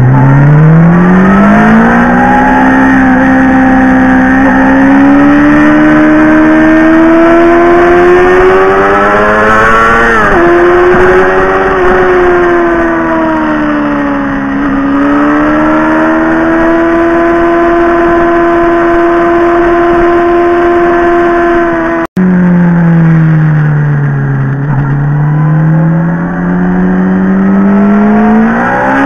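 Motorcycle engine heard from an onboard camera while riding, loud and continuous. It climbs in pitch as it accelerates at the start, then holds a cruise whose pitch rises and dips with the throttle. After a sudden break about two-thirds of the way in it runs lower, then climbs again near the end.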